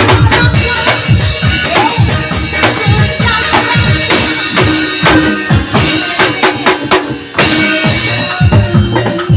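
Upbeat Gondang remix music driven by a drum-kit beat with a heavy bass drum; the music thins out briefly about seven seconds in, then the beat comes back in.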